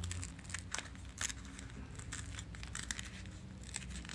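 A small cardboard box being opened and handled by hand: irregular short scratches and rustles of card and packaging.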